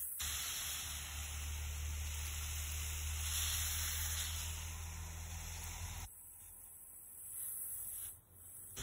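Water from a garden hose spraying onto soil and potato plants: a steady hiss that cuts off suddenly about six seconds in.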